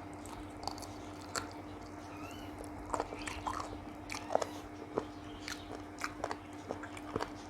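Close-up eating sounds: chewing, wet lip smacks and small mouth clicks at irregular intervals, over a faint steady hum.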